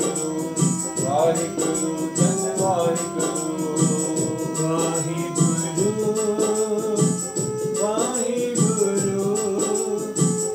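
Devotional singing over held drone tones and a steady rattling percussion beat. The held notes move to a new pitch about halfway through.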